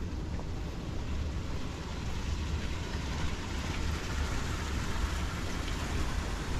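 Wind buffeting the microphone: a low, unsteady rumble over an even hiss.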